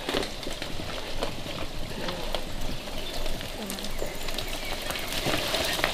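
Mountain bikes being ridden and pushed through mud and over roots, close by: a continuous jumble of tyre, drivetrain and footstep noise with many small clicks and ticks.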